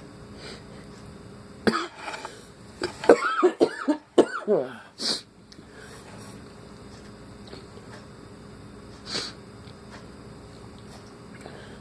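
A person sneezing: a sudden explosive burst about two seconds in, then about three seconds of loud voiced sneezing and gasping. A sharp sniff follows, and another comes near the end.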